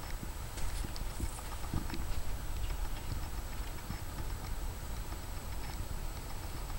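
Outdoor ambience: a steady low rumble with scattered light clicks and taps, and a faint thin high whine throughout.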